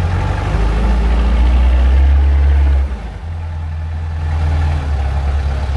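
Wheel loader's diesel engine heard from inside the cab, revving up and then dropping back sharply about three seconds in, and picking up again near the end.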